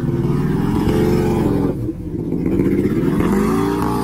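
Can-Am ATV engine revving hard under heavy load as the quad churns through deep mud. The revs climb, drop about two seconds in, climb again, then fall away at the end.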